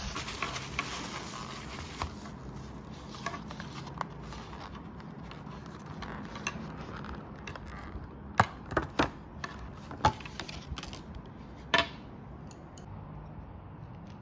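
A thin plastic bag crinkling as it is unwrapped, then several sharp clicks and snaps of a clear plastic takeaway container being opened, the loudest coming between about 8 and 12 seconds in.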